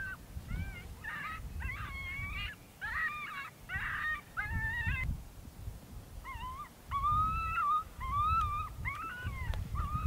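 Canine whining and whimpering: a run of short, high cries that bend up and down in pitch, pausing for about a second and a half near the middle. A low rumble comes and goes underneath.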